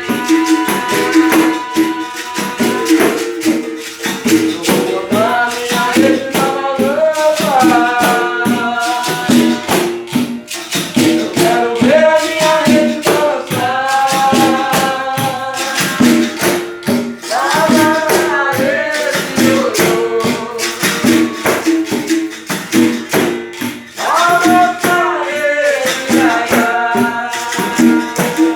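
Capoeira angola music: a cantiga sung in phrases over a berimbau and a steady rhythm of shaken and struck percussion, rattle and tambourine.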